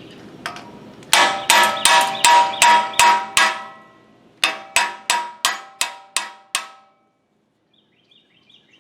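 Hammer tapping on metal, each blow ringing: two quick runs of about seven blows, a short pause between them.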